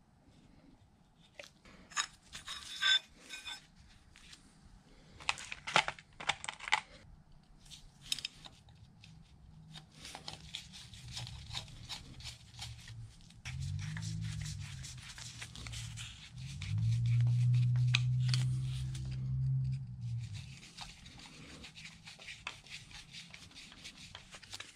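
Hand work on a Bridgeport milling machine saddle: sharp clicks from a pump oil can early on, then the scrape and rub of a screwdriver turning screws into the steel way-wiper cover. A low hum comes in a little past the middle and is the loudest sound for several seconds.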